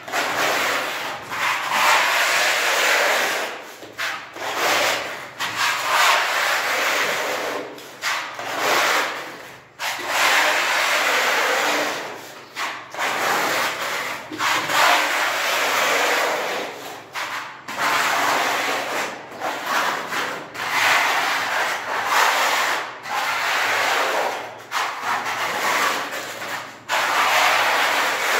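Putty knife spreading wall putty across a plastered wall: repeated scraping strokes, each a second or two long, with short breaks between.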